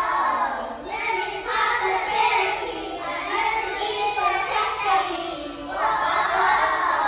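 A group of young children singing a song together, with a short break about five and a half seconds in.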